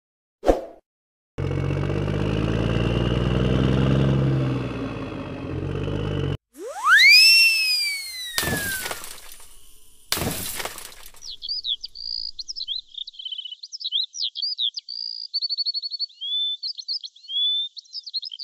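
A string of added sound effects: a short hit, an engine-like rumble for about five seconds, a whistle that rises then falls, two crashing smashes, then rapid high bird-like chirping through the last seven seconds.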